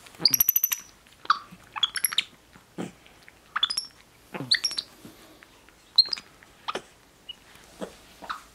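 Black-capped capuchin monkey squeaks and chirps: short, high-pitched calls in scattered bursts, with a quick run of rapid squeaks about half a second in.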